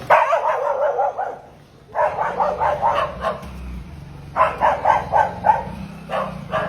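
A dog barking in quick runs of short yaps, about four runs with brief pauses between them.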